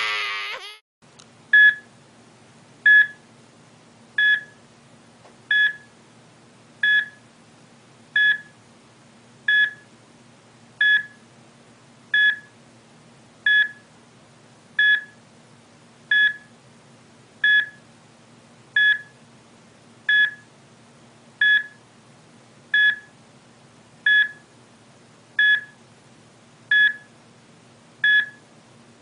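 Electronic beep like a hospital heart monitor's pulse tone, one short high beep about every 1.3 seconds, over a faint steady hum.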